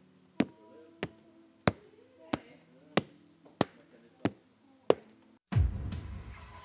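Footsteps approaching: eight evenly paced, sharp taps about two-thirds of a second apart. A louder, noisier sound with a low rumble takes over near the end.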